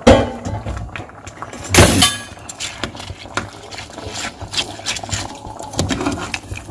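Metal ladle knocking sharply twice against the rim of an aluminium pressure cooker, once at the start and again with a short ringing clank about two seconds in. Between and after the knocks come soft scrapes and ticks as the ladle spreads rice through the liquid.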